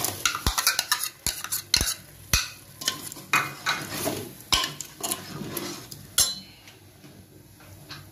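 Steel ladle scraping and stirring tomato paste into brinjals in a pressure cooker, with repeated metal clinks against the pot. The clinking stops about six seconds in.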